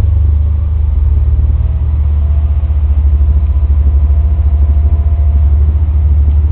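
River sightseeing boat's engine running with a steady low drone, heard from the open deck.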